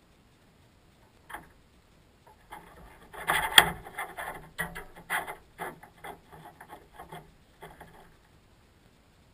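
Coiled rope being set down and handled on a vehicle's roof rack right beside the camera: an irregular run of close rubs, scrapes and knocks. The loudest is a sharp knock about three and a half seconds in, and the sounds stop about eight seconds in.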